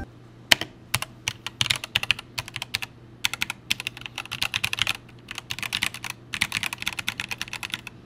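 Deepcool KG722 mechanical keyboard, with Gateron red linear switches and ABS keycaps, being typed on in quick runs of key clacks with brief pauses between them.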